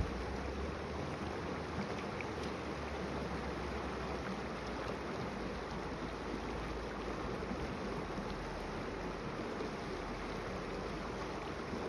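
Creek water running over a rocky riffle: a steady rushing with no breaks.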